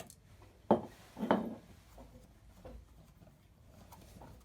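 Two sharp knocks about half a second apart, then faint clicks: the hopper cover of a vintage manual coffee grinder being handled and fitted before grinding.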